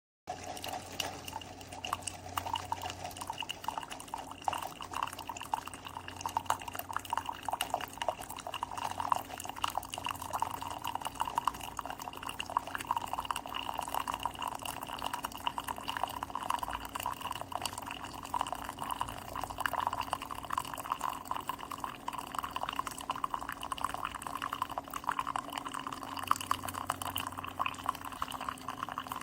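Keurig K-Express single-serve coffee maker brewing, coffee streaming and dripping into a cup, with a steady hum underneath.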